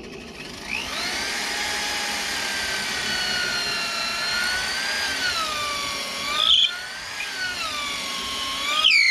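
Electric drill running and boring through a wooden gate post, its motor whine wavering up and down in pitch as the bit works through the wood. Two brief louder bursts come about six and a half seconds in and near the end.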